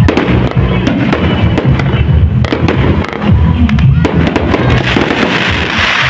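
Aerial fireworks shells bursting one after another with sharp bangs, over music playing throughout. A dense crackle comes near the end.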